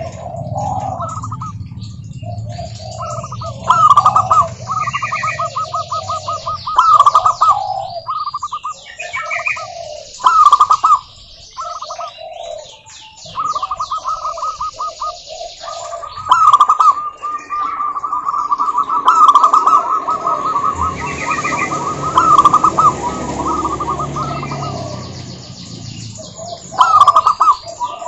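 Zebra doves singing, several birds answering one another, with phrases of rapid staccato coos repeated over and over; smaller birds chirp thinly above them.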